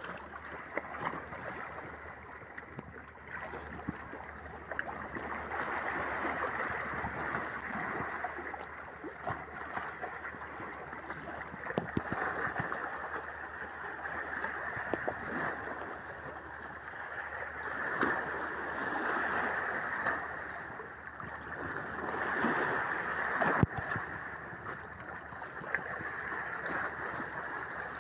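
Shallow seawater washing in and out over rocks, swelling and fading every few seconds as small waves come in, with a sharp click about two-thirds of the way through.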